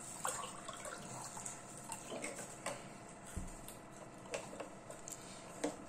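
Two children eating shawarma rolls: quiet chewing and scattered short, wet mouth clicks.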